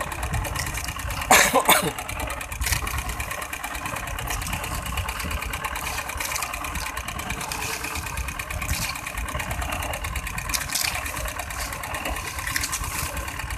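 The fishing boat's small engine idling steadily, with a brief loud clatter of knocks and splashes about a second and a half in.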